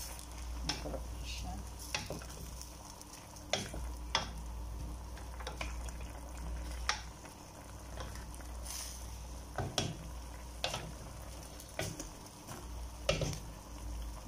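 A wooden spatula stirring a chunky chicken stew in a steel pot. The spatula scrapes and knocks against the pot at irregular moments over a steady cooking hiss.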